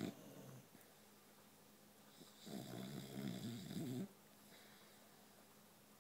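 Sleeping boxer dog snoring: the tail end of one snore at the start, then one long snore from about two and a half seconds in to about four seconds in.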